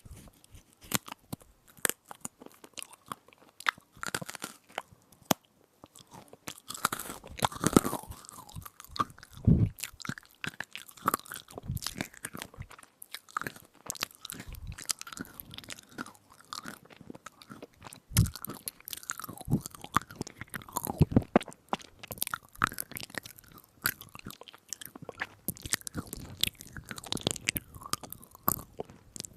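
Close-miked crunching and chewing of a crisp edible spoon, a dense run of irregular sharp crunches and small cracks with a few heavier bites.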